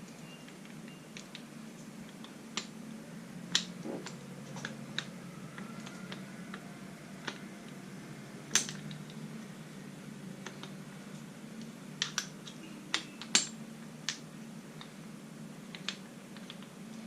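Scattered sharp metallic clicks and taps of hand tools and machine parts being handled during disassembly, about a dozen in all, over a steady low hum.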